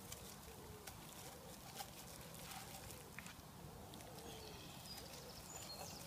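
Faint outdoor background: a low steady haze with a few soft clicks, and faint high chirps near the end.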